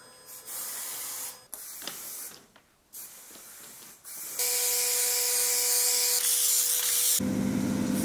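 Aerosol spray-paint cans hissing in separate bursts as graffiti is sprayed onto metro carriages, the longest and loudest burst lasting about three seconds past the middle. A steady hum runs underneath, and low music with a heavy bass comes in near the end.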